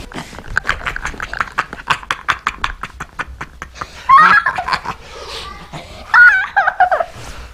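A man and a small child laughing while romping together: a run of quick, evenly spaced laugh pulses, then high squealing laughs about four and six seconds in.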